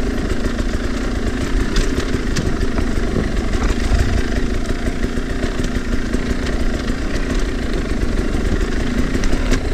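Sherco 300 SE Factory two-stroke enduro motorcycle engine running at low, fairly steady revs while being ridden slowly along the trail.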